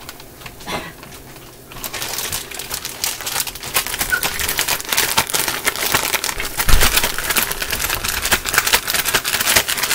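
Plastic bag crinkling and rustling as squirrel legs are shaken around inside it in seasoned flour, starting about two seconds in and going on as dense, irregular crackling with a dull thump near the middle.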